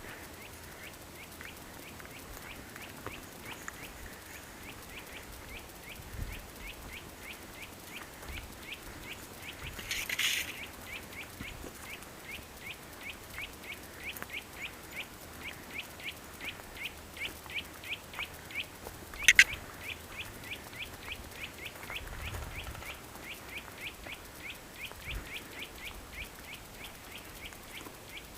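A bird calling over and over, a short high chirp repeated evenly about three times a second. A brief burst of noise comes about a third of the way in, and a single loud, sharp snap about two-thirds of the way through.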